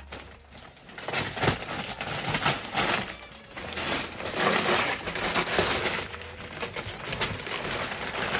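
Gift wrapping paper being torn open and crumpled by hand: irregular crackling rips and rustles, starting about a second in.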